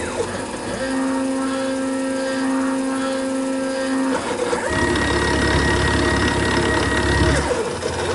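Milling machine taking bevel passes in a cast iron block with a 1/4-inch ball end mill. It makes a steady machine whine that jumps to a new pitch several times as the moves change, with a rough grinding noise under it.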